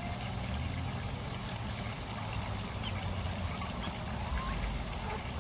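Shallow stream water trickling steadily under a low rumble, with a few faint, short high chirps.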